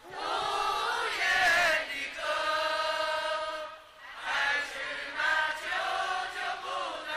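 A crowd of people singing together in unison, with a long held note in the middle and a short break about four seconds in.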